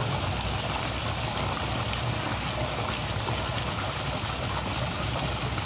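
Steady splashing of a row of arching fountain jets falling into a swimming pool, with a low rumble underneath.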